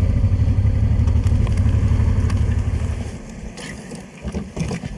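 Honda Transalp V-twin motorcycle engine running as the bike slows and pulls over, its rumble dropping away sharply about three seconds in, leaving a much quieter stretch with a few small clicks.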